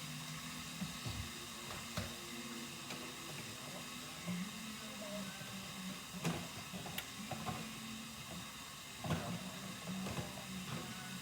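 Butter melting in a pot on the stove, sizzling faintly and steadily, with a few sharp knocks and clatters of kitchen containers being handled.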